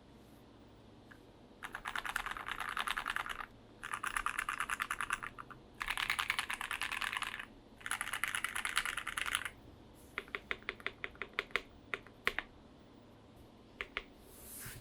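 Typing on a Tofu65 mechanical keyboard with a brass plate, lubed and filmed Gateron Ink Black V2 linear switches and PBT keycaps, a muted, thocky sound. Four bursts of fast typing, then a slower run of single key presses and a last couple of taps near the end.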